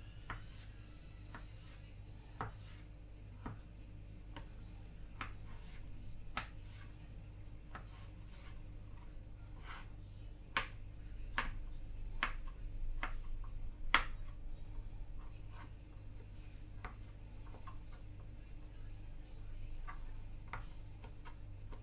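Knife strokes on a cutting board as vegetables are cut, irregular taps and knocks every second or two over a steady low hum.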